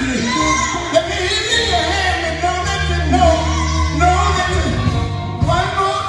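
Live band music with singing: voices over the band, with a held bass note under them in the middle.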